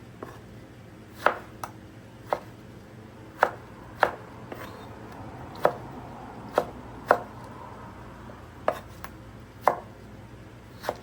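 Knife chopping on a cutting board: single sharp strokes at an uneven pace, about one a second.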